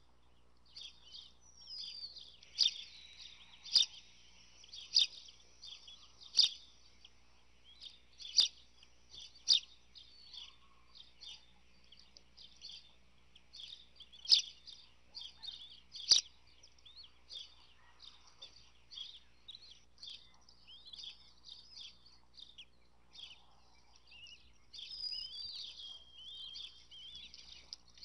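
Newly hatched bald eaglet chicks peeping, begging as they are fed: a steady run of short, high chirps, with a few louder, sharp peeps in the first half.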